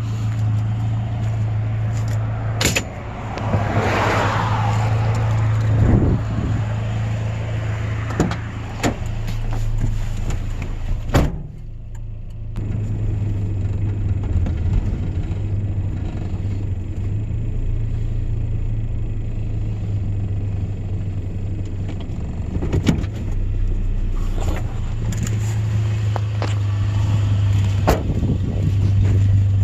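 A vehicle engine drones steadily, as on a drive, with a few sharp knocks and rattles scattered through it.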